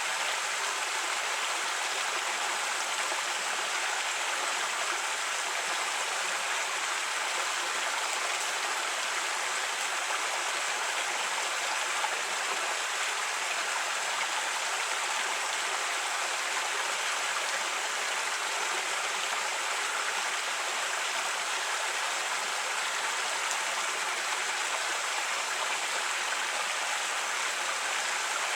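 Creek water flowing and splashing steadily over rocks, an even rushing sound.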